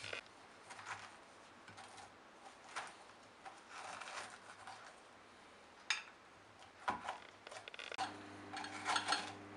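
A small metal utensil scraping and scooping seeds out of a hollowed squash: soft scratchy scrapes with a few sharp clicks, growing busier near the end.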